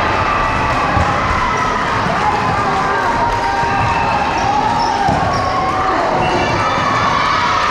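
Volleyball rally in a large gymnasium: the ball is struck and thuds a few times, echoing in the hall, over steady chatter and calls from the crowd and players.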